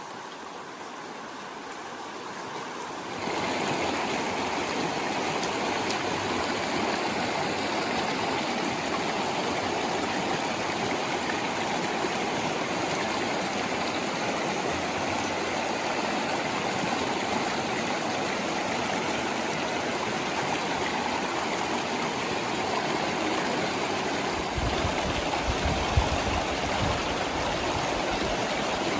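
Creek water rushing steadily over rocks, growing louder about three seconds in. A few seconds before the end there is a brief low rumble and a single sharp knock.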